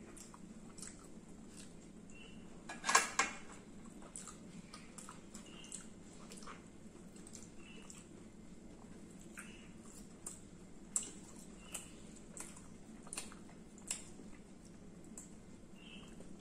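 Eating sounds of two people eating rice and fried dishes with their fingers: soft chewing, lip smacks and scattered small clicks over a steady low hum. A louder double knock comes about three seconds in, with a few sharper clicks later on.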